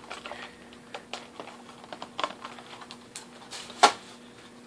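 Fingers tapping on and handling plastic product packaging: irregular light taps and crinkles, with one loud sharp knock just before four seconds in.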